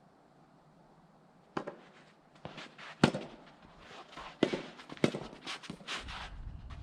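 Soft tennis rackets striking the rubber ball, a string of sharp pops about a second apart, the loudest about 3 seconds in. Wind buffets the microphone near the end.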